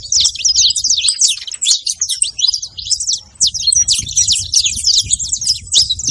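Saffron finch singing: a fast, nearly unbroken stream of high chirps and quick up-and-down sweeps, with a short lull a little over three seconds in.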